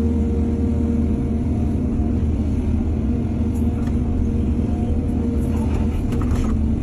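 Excavator's diesel engine running steadily under load, with a few faint clinks near the end.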